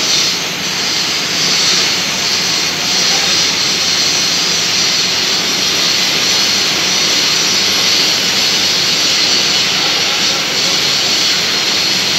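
Large lathe running while its tool cuts a big stainless steel ring: a loud, steady, hissing machine noise.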